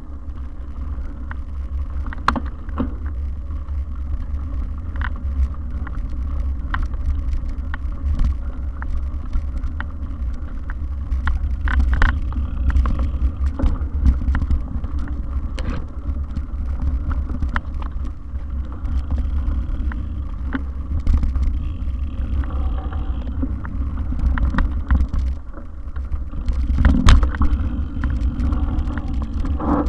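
Mountain bike ridden fast over a rough dirt singletrack, heard from a camera carried on the bike or rider: a steady low rumble of wind and vibration with frequent clicks and rattles as the wheels hit stones and roots. It gets louder and rougher near the end.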